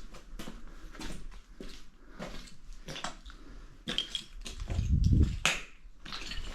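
Footsteps crunching on the gritty floor of a small tunnel, about two steps a second, with a heavy low thump about five seconds in.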